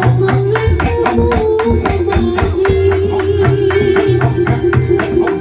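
Live band music with a fast, steady drum beat, a sustained melody line held over it, and a strong bass.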